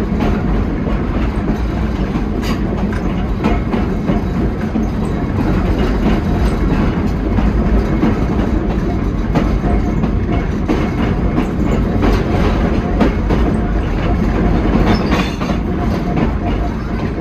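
Pacific Electric 'Blimp' interurban coach running along the track, heard from aboard: a steady low rumble with the wheels clicking over rail joints now and then.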